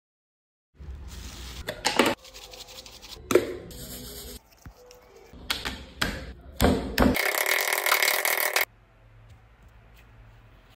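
Food being handled on a wooden cutting board: several sharp knocks and taps with rustling and handling noise between them, and a loud harsh noise lasting about a second and a half about seven seconds in.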